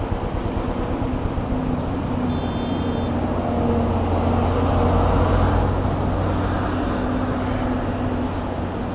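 A loaded truck passes close by on the road. Its engine and tyres grow louder from about three and a half seconds in, peak, then ease off as it moves away, over a steady low rumble.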